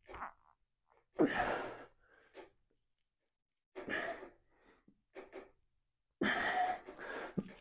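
A man breathing hard with the effort of bodyweight dips: three loud breaths, about two and a half seconds apart.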